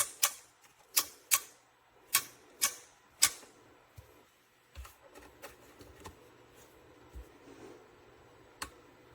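Sharp plastic clicks from handling a Cuisinart electric burr coffee grinder: seven in the first three and a half seconds, then fainter scattered knocks and taps, and one more click near the end.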